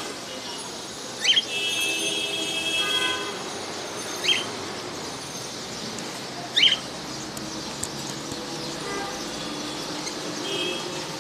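Pet birds chirping and chattering, with three short, loud, shrill calls about a second, four seconds and six and a half seconds in.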